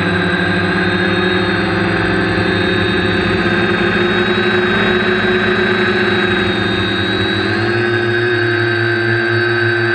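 Quadcopter's electric motors and propellers buzzing steadily, heard from the camera mounted on the craft, with several held tones. The pitch shifts about seven and a half seconds in.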